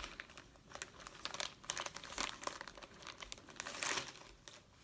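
A plastic zip-top bag crinkling as a tablet LCD panel is slid into it: a run of irregular crackles, loudest about four seconds in.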